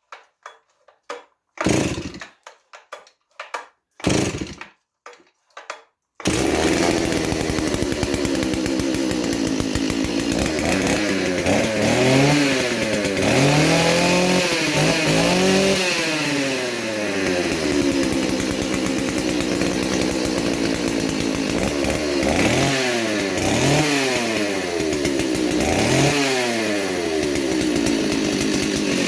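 Stihl 038 two-stroke chainsaw engine: a few short rasps of the pull starter, then it catches about six seconds in and runs steadily, revving up and down several times. The saw has a suspected crankshaft-seal air leak on the clutch side, masked here by a high-speed jet screwed out very rich.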